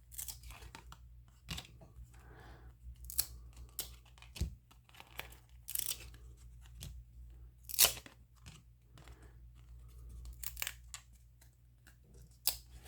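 1993 Upper Deck baseball trading cards handled by hand: a string of irregular sharp snaps and slides of card stock as the cards are flipped through, the loudest about eight seconds in.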